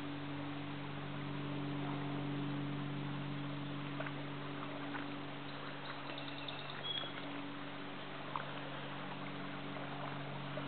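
Quiet outdoor ambience: an even hiss with a steady low hum underneath, a few faint clicks, and a brief faint high chirp about seven seconds in.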